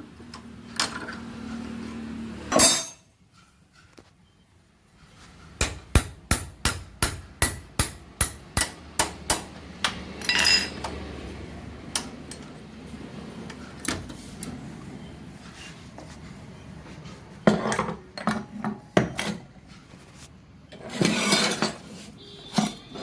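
Hammer tapping on metal: a run of about a dozen sharp knocks at two to three a second, then scattered clinks, and another cluster of knocks and metal clatter near the end.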